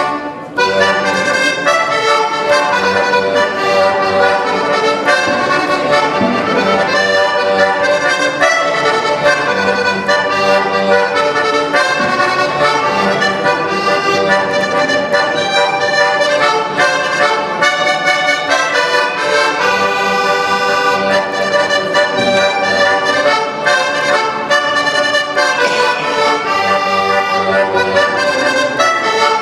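Solo organetto (Italian diatonic button accordion) playing a tune, melody notes changing quickly over sustained accompaniment chords, with the bellows pushed and pulled throughout.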